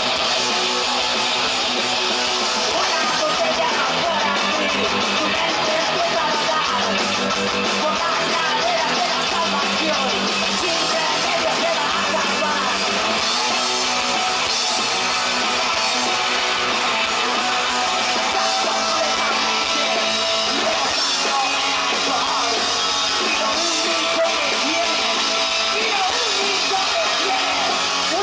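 Punk rock band playing live: loud guitar-driven rock music that keeps a steady level throughout.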